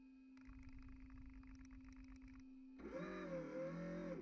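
Steady hum of the RC fireboat's drive motor, with a long drawn-out call that rises, holds and falls about three seconds in, lasting over a second.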